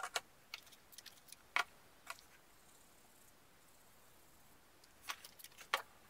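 Sharp plastic clicks and taps from a TV remote control being handled and picked up off a wooden table. They come in a cluster over the first two seconds and again about five seconds in.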